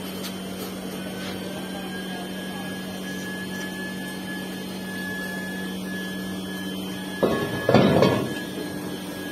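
Steady low hum of the foundry furnaces' air blower, with a faint high whine above it. Just before the eight-second mark comes a loud, rough scraping rush of about a second.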